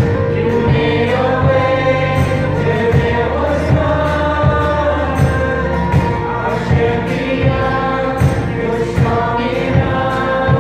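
Live worship band: a Yamaha keyboard and an acoustic guitar hold sustained chords under sung vocals, with a steady drum beat.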